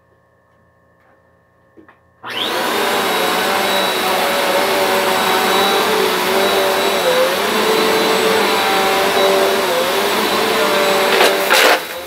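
Upright vacuum cleaner switched on about two seconds in, its motor spinning up fast and then running steadily with a high whine over a wavering lower hum. Near the end come two sharp clacks, after which the sound drops.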